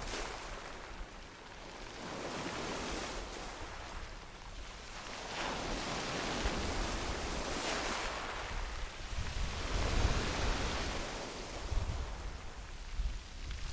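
Sea waves breaking and washing up a gravel beach, coming in repeated surges of hiss that swell and fade every few seconds, the biggest one about ten seconds in with a deeper rumble.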